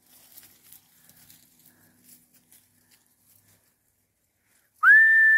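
Faint crunching footsteps on a dirt path strewn with dry leaves. Near the end, a short, high, steady whistle that rises at its onset, the kind a herder gives to move a flock.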